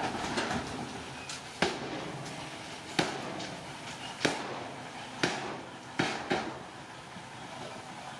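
A series of sharp bangs or knocks, about seven, roughly a second or so apart, over a steady background noise.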